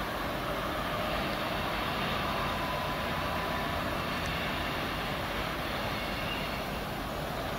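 Two diesel locomotives running as they haul a container freight train past: a steady engine drone mixed with the rolling noise of the wagons.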